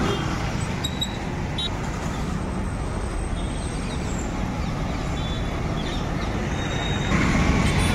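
Road traffic passing: motor scooters, motorcycles and auto-rickshaws running by on the street, a steady mix of engine rumble and tyre noise that grows a little louder near the end.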